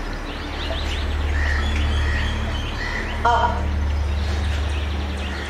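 Birds chirping, with many short, repeated chirps, over a steady low hum. One brief, louder call comes about three seconds in.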